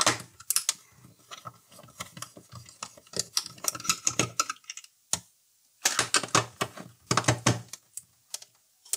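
Rapid, irregular clicks and taps of a screwdriver working screws out of a turntable's plastic chassis, in two runs with a pause of about a second halfway through.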